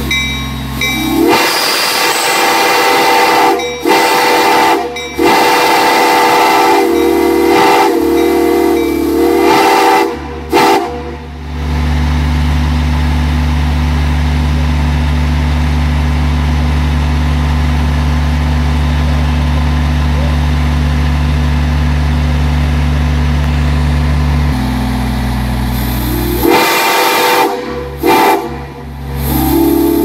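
Illinois Central six-chime steam whistle blown in long blasts. Each blast slides up into a full, steady chord and is broken by a few short cut-offs. Between blasts a steady low machine drone fills a stretch of about thirteen seconds, and the whistle sounds again near the end.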